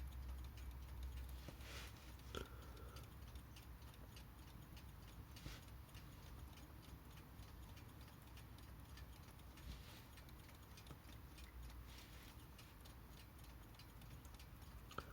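Haller Beatall mechanical alarm clock movement, freshly oiled, ticking faintly and evenly at several ticks a second. It is running poorly ('kind of awful'), which the owner suspects may be down to worn balance cups.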